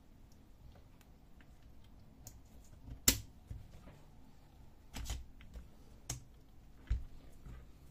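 Clicks and knocks of a metal bracket being fitted onto the frame of an HP Color LaserJet CP3525 fuser unit by hand. One sharp click about three seconds in is the loudest, followed by three more scattered over the next four seconds.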